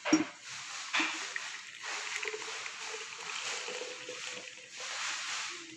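Hot ginger-and-lemon tea being poured into a glass: a sharp clink right at the start and a smaller one about a second in, then a steady pour for about four seconds.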